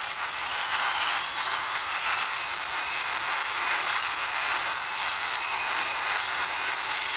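Plastic wheels of a small toy police motorbike rolling across a hard surface as it is pushed along by hand, a steady scraping hiss that stops just after the end.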